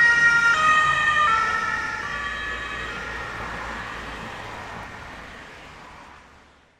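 Ambulance siren passing by: its pitch drops as it goes past, then it fades steadily into the distance and cuts off near the end. The lowered pitch is the Doppler shift of a siren moving away from the listener.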